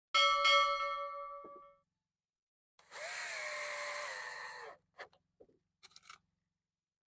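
A metal object is struck with a ringing clang that dies away over about a second and a half. About three seconds in, a cordless drill runs for nearly two seconds, driving a screw into pallet wood, its pitch dipping under load; a few light clicks follow.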